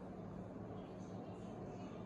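Quiet room tone with a steady low hum, and from about a second in a faint soft rustle of a stack of cut card sheets shifting in the hand.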